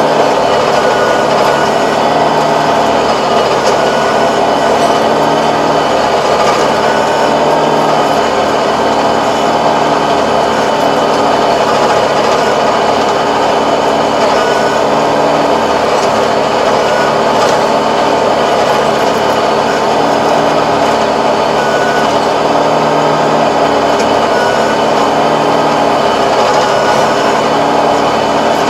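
Tractor engine running steadily under load, driving a Kobashi rotary tiller through grassy soil, with the rotary's gearbox and tines churning.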